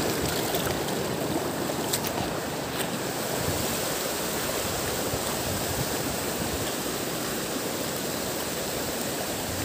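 Shallow river water running over stones with a steady rushing noise that grows slightly fainter toward the end.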